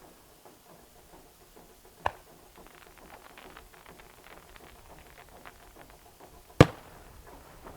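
Two aerial firework shells bursting with sharp bangs about four and a half seconds apart, the second the louder, with a few seconds of scattered small crackles between them.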